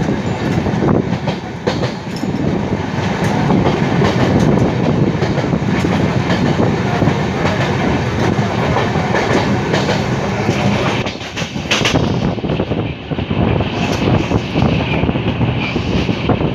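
Running noise of a moving passenger train heard from an open coach doorway: wheels clattering over the rail joints with a continuous rushing rumble. A few sharper clacks come about two-thirds of the way through.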